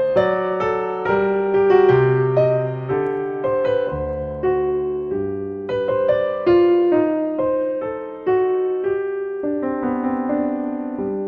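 Background solo piano music: a melody of single struck notes over lower held notes.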